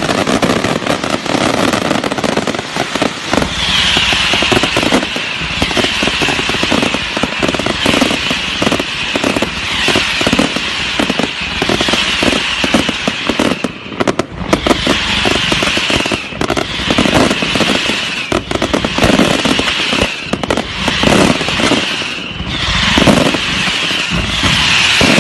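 Fireworks display: a dense, unbroken run of bangs and crackling, with a bright crackling hiss swelling about every two seconds.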